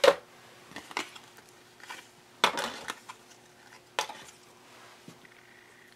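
Hands handling a plastic embossing folder and cardstock, giving a few light clicks and clacks. A longer, louder rustle and clack comes about two and a half seconds in.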